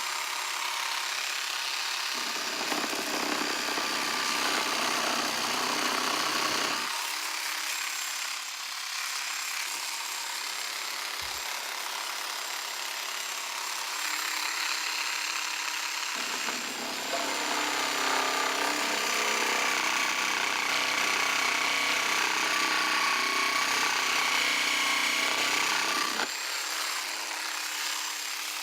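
Dremel rotary tool with the MS400 jigsaw attachment running steadily with a high whine, its reciprocating blade sawing through pine. It cuts twice: a few seconds in for about five seconds, and again from just past the middle for about ten seconds, with the tool running free between cuts.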